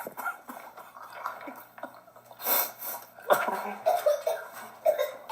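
A man coughing and gagging as he eats jellied canned dog food, with a sharp breathy cough about two and a half seconds in and strained throat sounds after it. It is a retching reaction to the food's smell and taste.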